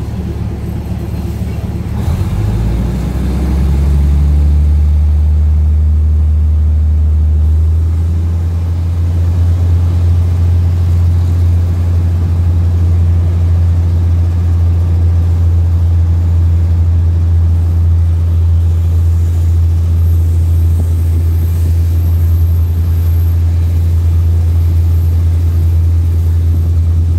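Diesel engine of a passenger train pulling away from a station: a loud, low drone that rises in pitch about two to four seconds in, then holds steady as the train gathers speed.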